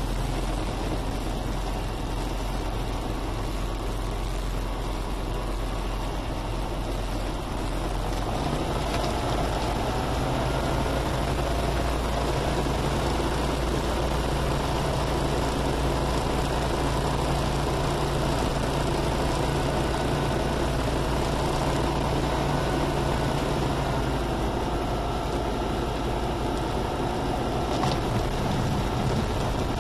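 Diamond HK36 Super Dimona's piston engine running steadily. Its note picks up a little about eight seconds in and eases back a few seconds before the end.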